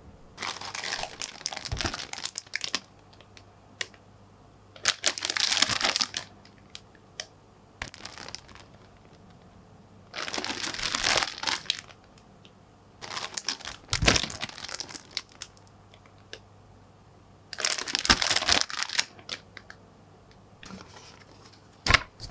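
Clear plastic bags holding plastic model kit runners crinkling as they are handled, in about six separate bursts of a second or two each with quiet gaps between. A few low thuds come among the crinkles.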